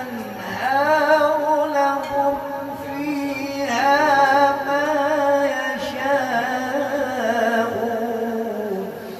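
A man's voice reciting the Quran in melodic tarannum style: two long, ornamented held phrases with wavering pitch, the second sinking lower and fading near the end.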